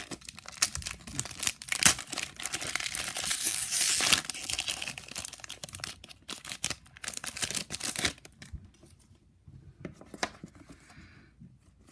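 Foil booster-pack wrapper being torn open and crinkled: dense crackling for several seconds, thinning to scattered crinkles near the end.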